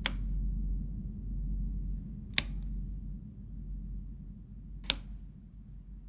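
Three sharp clicks about two and a half seconds apart, as the room lights flicker on and off, over a low steady drone.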